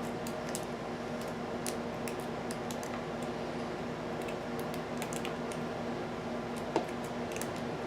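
Light scattered clicks and ticks of a hook pick working the pins of an American Series 700 padlock under a tension wrench, with one sharper click near the end, over a steady low hum.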